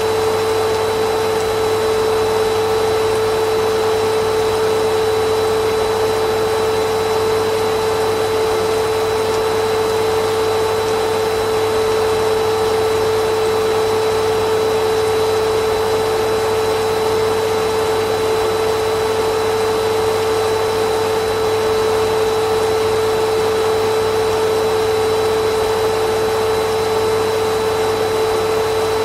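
Vacuum cleaner motor running steadily, a constant rushing whine with a strong single pitch and a fainter high tone, unchanging throughout.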